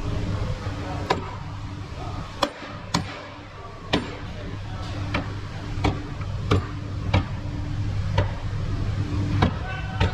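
Repeated sharp hammer taps, about a dozen at an uneven pace of one or two a second, over a steady low hum.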